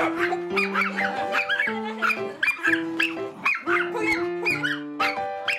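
Background music with held notes and a steady beat, over a dog barking repeatedly.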